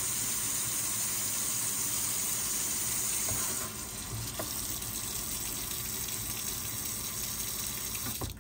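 Hot water running steadily from a kitchen tap, left on to get really hot, splashing into the sink. A little over a third of the way in it turns softer and duller; by the end the stream is falling onto soaked paper towels in a ceramic baking dish.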